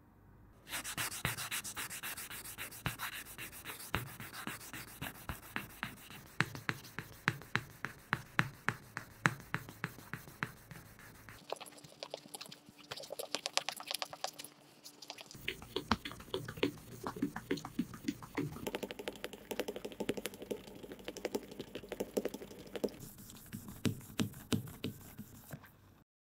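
An amber stone rubbed back and forth on fine-grit sandpaper (2000 and 3000 grit), a dry rasping scratch with regular strokes about three a second. The sound changes in tone twice partway through and stops just before the end.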